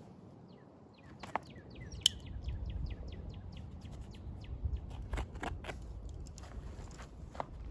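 A bird singing a quick run of short falling chirps in the first half. Through it come a few sharp snaps and rustles of cotton denim being torn and its threads pulled apart by hand, the loudest about two seconds in.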